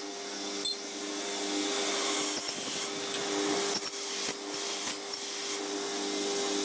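A power tool runs with a steady hum and hiss, with scattered short clicks and knocks of aluminum parts being worked.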